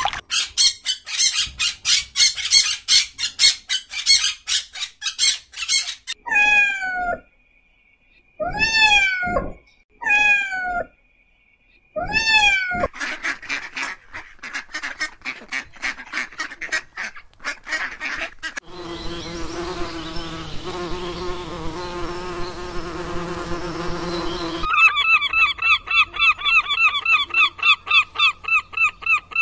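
A run of bird calls in several short clips. It opens with rapid chattering calls, then four separate drawn-out honks with a falling-then-rising pitch, more quick calls, a steady droning stretch, and a fast series of repeated calls near the end.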